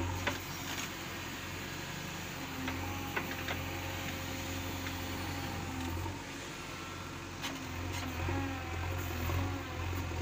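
JCB 3DX Eco backhoe loader's diesel engine running under load while the backhoe arm digs, with a few sharp clanks. The engine note drops about six seconds in and builds back up a couple of seconds later.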